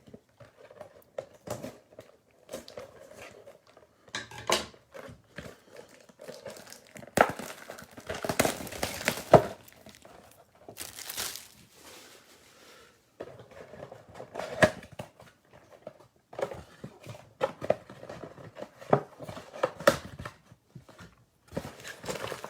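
Plastic wrapping crinkling and tearing as a sealed trading-card box is opened, in irregular rustling bursts, the loudest about halfway through.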